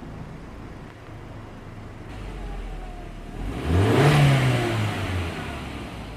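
A car engine fitted with a fake turbo whistle on the exhaust idles, then is revved once about three and a half seconds in. The pitch rises and falls back over about two seconds, with a rushing hiss at the peak of the rev.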